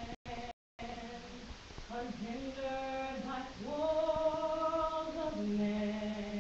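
A woman singing solo, holding long sustained notes. The sound cuts out twice for a moment just after it begins.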